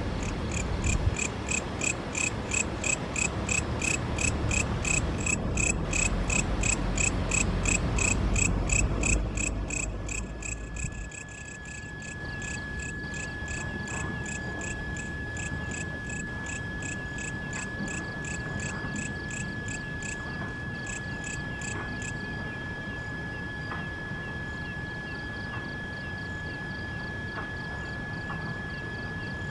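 Night insects chirping in a fast even pulse, about four or five chirps a second, which stops about two-thirds of the way through. From about a third of the way in, a steady high insect trill joins them and runs on. Beneath them a low rumble drops away about a third of the way in.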